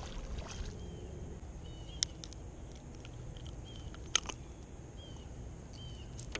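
A small bird chirping over and over, short high chirps about once a second, with two sharp clicks about two and four seconds in.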